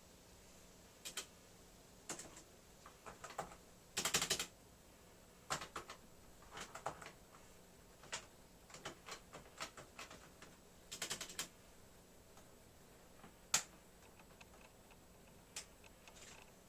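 Keys being typed on the StarWriter Pro 5000 typewriter's keyboard: irregular clicks in small clusters, with two quick rattling runs of keystrokes about four and eleven seconds in.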